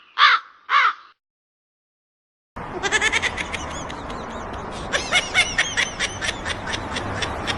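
Two harsh, loud animal calls in the first second, then a break of silence of about a second and a half. After the break comes a dense run of rapid, high chirps over a steady noisy background.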